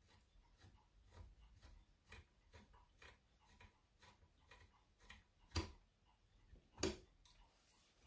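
Faint ticking of an Ansonia clock movement, about two ticks a second, with two louder clicks in the last few seconds as the hinged brass bezel is worked open.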